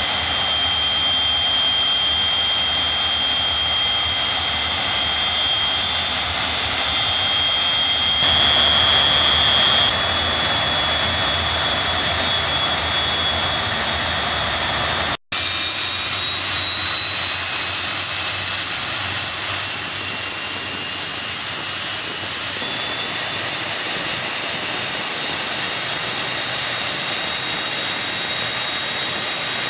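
Rolls-Royce Avon Mk 1 axial-flow turbojet running: a steady jet roar topped by a high compressor whine. The whine steps up in pitch a few times as the engine speeds up. The sound drops out for a split second about halfway, at an edit.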